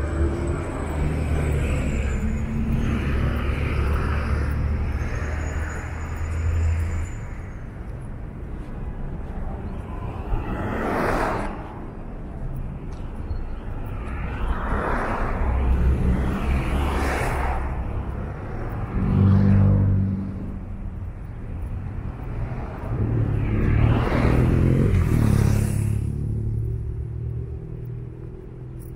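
Street traffic: cars driving past one after another close by, each a rush of tyre and engine noise that swells and fades. A low engine rumble runs under the first several seconds.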